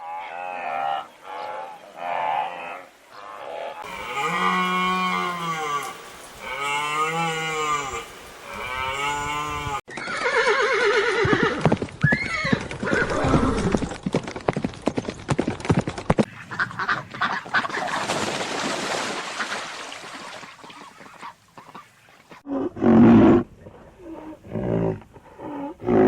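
A run of different animal calls one after another, including a series of repeated pitched calls that rise and fall, each about a second long, followed by rougher, noisier calls.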